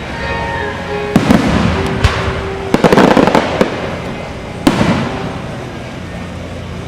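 Aerial fireworks going off: single bangs about a second in, at two seconds and near five seconds, with a rapid string of crackling pops around three seconds, each trailing off as it fades.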